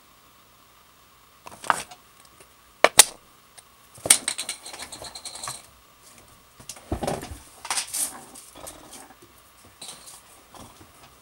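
Small plastic toy medals and their packaging being handled: scattered clicks and short rustles, with a sharp click about three seconds in and a dull thump about seven seconds in.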